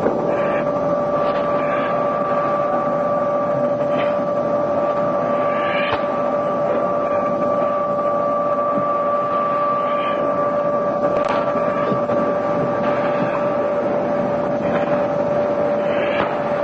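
A steady hum with hiss, holding two even tones, with faint brief swishes every couple of seconds.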